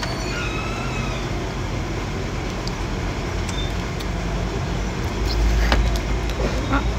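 Steady low rumble of background noise that grows louder about five seconds in, with a few faint clicks.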